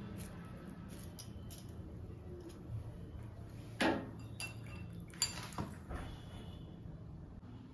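Kitchen clatter: a few sharp metallic or glassy clinks from utensils being handled, the loudest about four seconds in and another just after five seconds, over a faint low steady hum.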